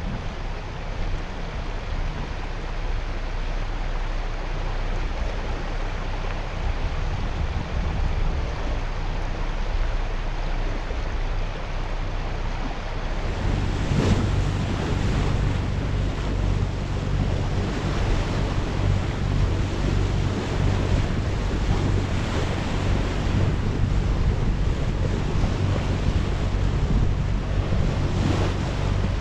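Water washing past a sailing yacht's hull, with wind rushing over the microphone. About 13 seconds in, the wind grows louder and a steady low hum joins it.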